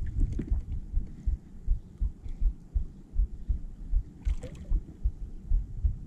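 Wind buffeting the camera microphone in low, irregular thumps, with a short burst of noise about four seconds in.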